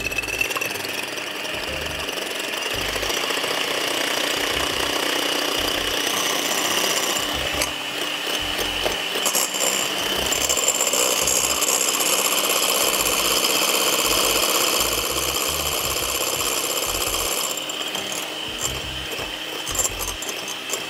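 Electric mixer beating egg whites in a bowl: a steady motor whine over a rough, continuous whirring, a little louder in the middle stretch.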